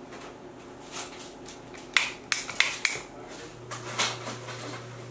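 OXO cookie press worked on a metal baking sheet: a quick run of sharp clicks and knocks about two seconds in, and another knock about four seconds in, as the press is set on the pan and its lever squeezed.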